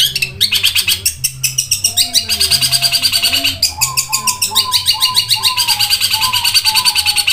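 Long-tailed shrike (cendet) singing a fast, almost unbroken chattering song of rapid high notes, many to the second.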